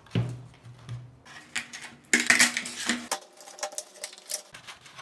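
Irregular metallic clicking and clinking as the aluminum parts of an all-metal pickleball paddle are worked apart, with a denser clatter about two seconds in.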